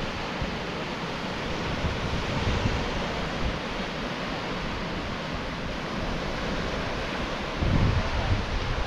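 Lake Michigan waves washing onto the beach, a steady hiss of surf. Wind buffets the microphone near the end.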